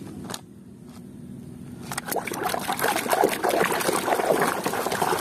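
A hand swishing and splashing in a plastic basin of muddy water, starting about two seconds in after a quieter stretch with a few light clicks.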